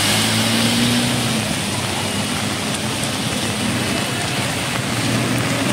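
A motorcycle drives through floodwater, its engine running and its wheels throwing up spray. The engine tone fades after about a second and a half, leaving a steady wash of rain and traffic noise.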